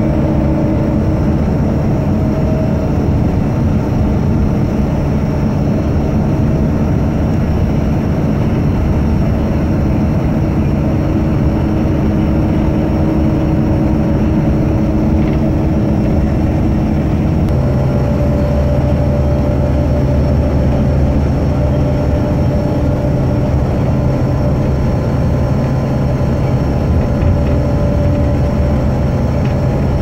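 Steady low engine rumble of a vehicle, its pitch shifting to a new steady note about 17 seconds in.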